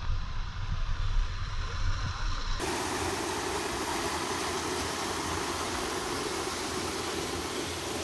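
A low, uneven rumble until a sudden change about two and a half seconds in, then the steady rush of a small waterfall splashing into a rock pool.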